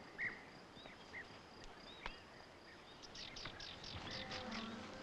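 Rural outdoor ambience: scattered bird chirps over a faint, high, steady insect drone. About three seconds in comes a quick run of descending bird notes.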